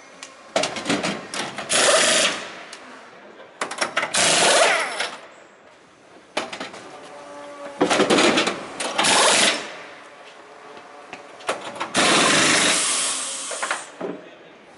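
Pneumatic wheel guns rattling in about five short bursts of roughly a second each, spinning the centre-lock wheel nuts off and on during a racing tyre change.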